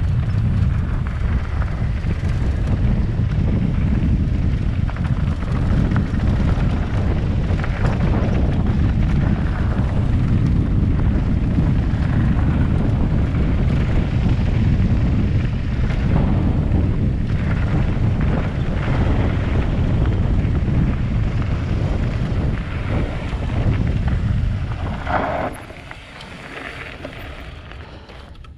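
Downhill mountain bike on a Trek Session frame rolling down a dirt trail: wind buffeting the mic, tyres rumbling, and the bike rattling over the ground. About 25 s in it slows almost to a stop with a short squeal from the rear disc brake, which the rider puts down to the sintered pads or poor bedding-in.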